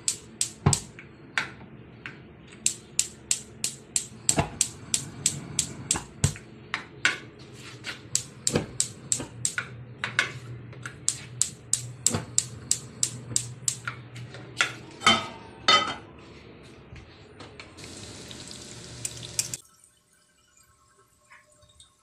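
Gas stove's spark igniter clicking rapidly and steadily, about four sharp clicks a second, with the burner not catching because the LPG tank has run out. A short hiss follows near the end, then the sound cuts off suddenly.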